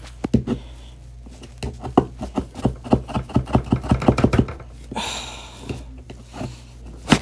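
A hand scraper tool scraping stuck paper and adhesive off a strong-grip Cricut cutting mat: a quick run of short scraping strokes, about five a second, then one longer scrape about five seconds in and a sharp knock near the end.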